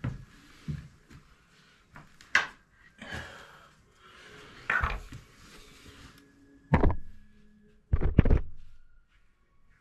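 Thuds and knocks of tools and parts being handled in a small bathroom during a toilet replacement, with scraping between the knocks; the sharpest knocks come about two and a half, five and seven seconds in, and a quick pair near the end.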